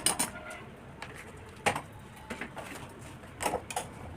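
A few sharp, separate clinks and knocks of hand tools against motorcycle engine parts while the engine covers are being taken off, two of them close together near the end.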